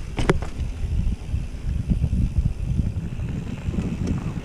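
Mountain bike rolling down a bumpy dirt singletrack, heard from a handlebar-mounted camera: an uneven low rumble of wind on the microphone and the bike jolting over the trail, with a short sharp click just after the start.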